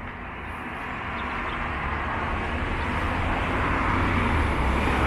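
A passing vehicle approaching, its engine and tyre noise growing steadily louder.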